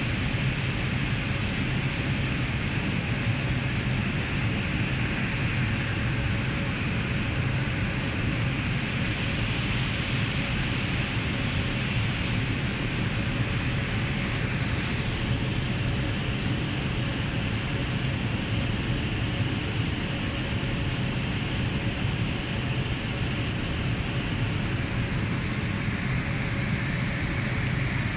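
Steady rushing noise of cooling fans and air conditioning in a telecom equipment room, with a low hum and a faint steady whine underneath. A couple of faint light clicks come near the end.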